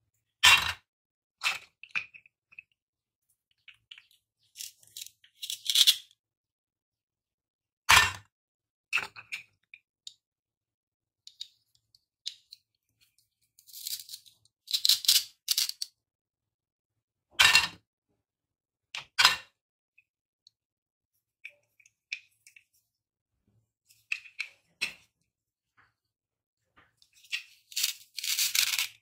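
Toy plastic fruits and vegetables joined with velcro being handled: scattered sharp clacks of hard plastic pieces knocking together, and short bursts of velcro tearing as the halves are pulled apart, the longest near the end.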